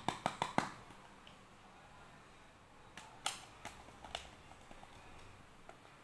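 Hard plastic Cadbury Dairy Milk Lickables cups handled and clicked against each other. There is a quick run of about five sharp clicks at the start, then another few clicks about three to four seconds in.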